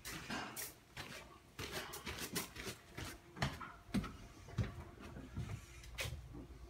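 Footsteps and knocks of someone walking while carrying a handheld camera: irregular short thuds about once or twice a second.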